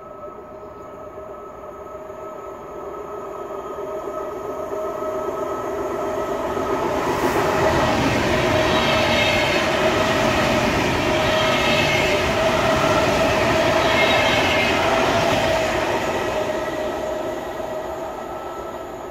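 Electric commuter train, an Sm4 multiple unit, passing through the stop at speed without stopping: the rumble of wheels on rail swells as it approaches, is loudest about eight to fifteen seconds in, and fades as it goes away, with a steady electric whine underneath.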